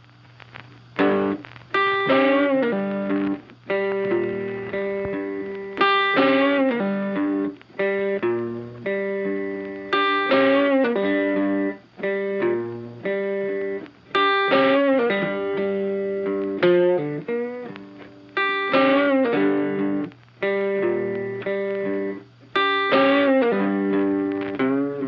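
Background music: a plucked guitar tune that comes in about a second in and repeats a short phrase roughly every four seconds.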